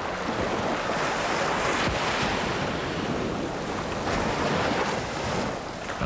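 Surf washing up a sandy beach: a steady rush of breaking waves, with some wind.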